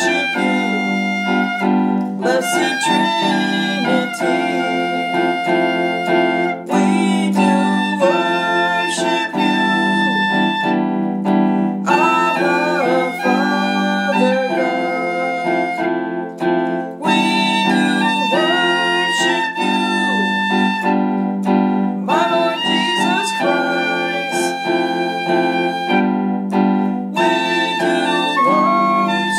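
Christian praise and worship music played on a piano-toned keyboard, with sustained chords and melody notes.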